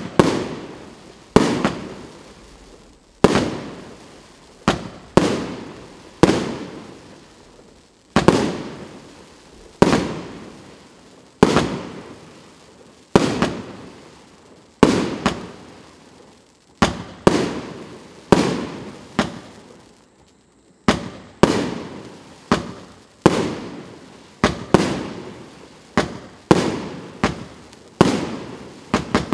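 A 36-shot, 1.2-inch consumer fireworks cake firing shot after shot. Each shot is a sharp bang followed by a crackling tail that dies away. The shots come about every second or two at first, then faster and closer together in the second half.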